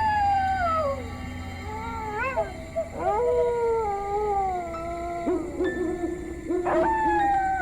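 Dogs howling: several long, overlapping howls that start high and slide down in pitch, one after another, with one held lower note in the second half.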